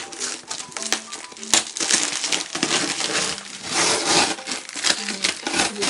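Tape being torn and peeled off a cardboard shipping box, a rough ripping and crackling that comes in uneven bursts and is loudest about four seconds in.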